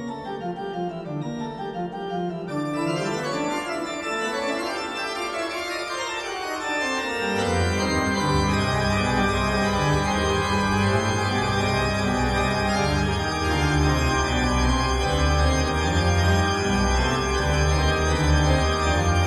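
Organ music in sustained chords; deep bass notes come in about seven seconds in and the music grows fuller and louder.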